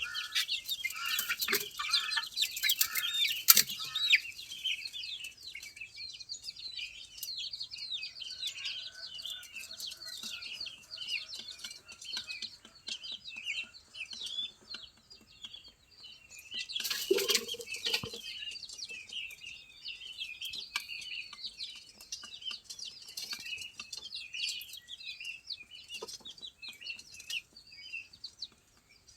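A flock of farm poultry calling: a constant dense chatter of short high cheeps, with louder clucks and squawks in the first few seconds and again about two-thirds of the way through.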